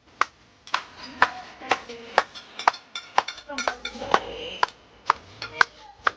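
Hands clapping in a steady rhythm, about two claps a second, with voices faintly in the background.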